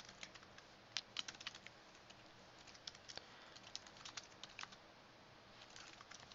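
Faint typing on a computer keyboard: a few short runs of key clicks with pauses between.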